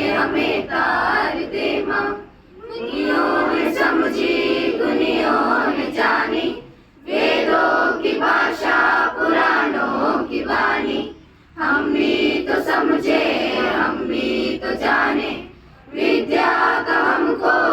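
School choir singing a Hindi prayer song together, in long phrases broken by short pauses every four or five seconds.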